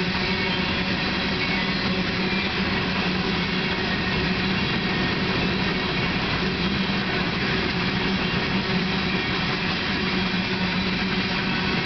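Loaded coal hopper cars rolling past, with the steady noise of steel wheels on rail and a low steady hum.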